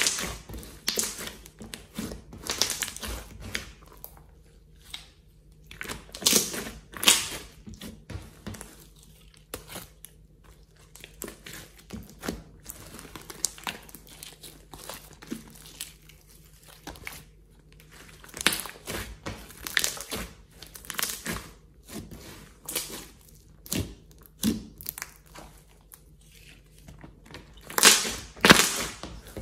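Slime being squeezed, stretched and folded by hand: irregular wet, sticky squelches in bursts, louder about six seconds in, around two-thirds of the way through and near the end.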